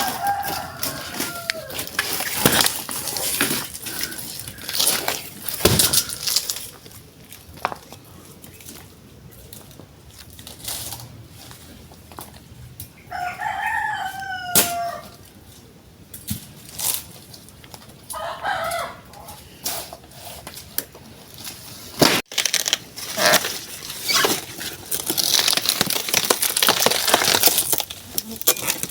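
Chickens calling a few times, including a rooster crowing, over scattered sharp knocks and rustling.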